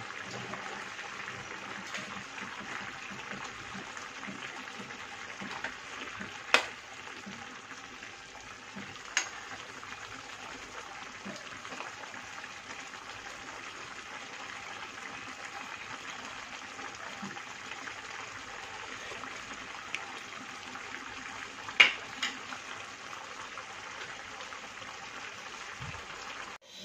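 Chicken adobo sauce simmering in a frying pan, a steady bubbling sizzle. A few sharp pops stand out, about six and a half seconds in and twice around twenty-two seconds.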